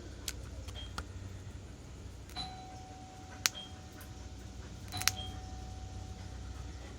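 Doorbell chime sounding faintly, rung by bridging the missing button's contacts with a screwdriver. Two strikes of the same note come about two and a half seconds apart, each ringing on for a second or so. There is a sharp click in between.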